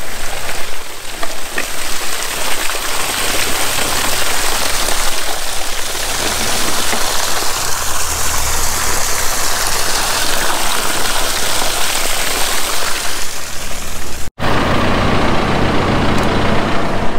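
Water gushing out of the end of a corrugated plastic drainage tile and splashing onto the ground in a steady rush, with an engine running low underneath; the freshly laid tile main is already draining the field. About fourteen seconds in, the sound cuts to a backhoe loader's engine running.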